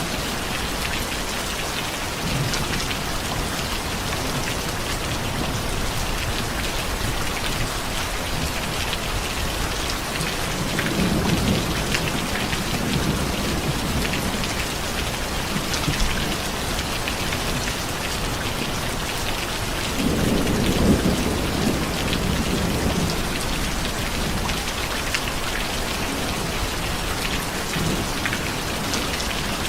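Steady rain falling, with low rolls of thunder, once about ten seconds in and again about twenty seconds in.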